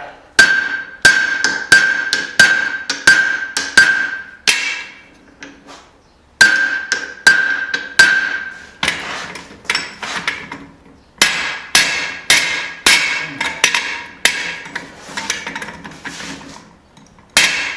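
Hand hammer striking hot steel on an anvil while forging a hammer head's eye with a drift, about two blows a second in three or four runs with short pauses. A clear ringing tone carries between the blows in the first two runs.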